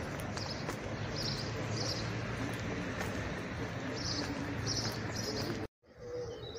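Outdoor town ambience with a small bird chirping over and over, short high chirps about two a second, above a steady low rumble. The sound cuts off abruptly a little over five seconds in, and after the break a low cooing, typical of a dove, starts.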